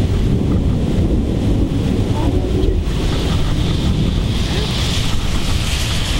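Thunderstorm wind and heavy rain: a steady, loud rushing, with wind buffeting the microphone.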